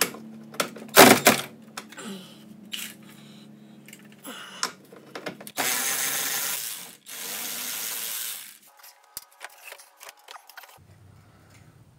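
Cordless power tool with a socket running in two short runs, each about a second and a half, spinning a 10 mm bolt out of a plastic underbody panel. Clicks and knocks of the socket and panel around it, with one loud sharp clack about a second in.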